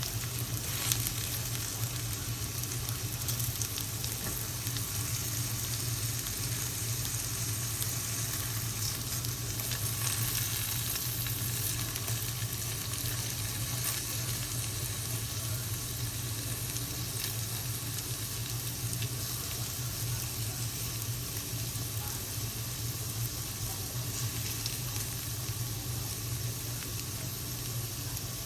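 Potatoes and carrots sizzling and frying in hot oil in a pan, a steady crackling hiss with fine pops throughout, over a steady low hum.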